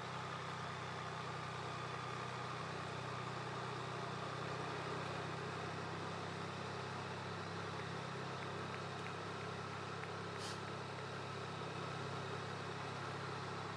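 Motor vehicle engine running steadily at low revs, pacing slowly alongside a climbing cyclist, with an even hum that does not change.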